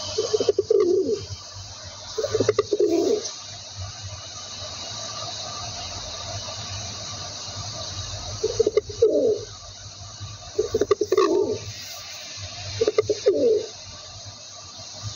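Rock pigeon cooing: five coos, each dropping in pitch at the end, two in quick succession near the start and three more in the second half.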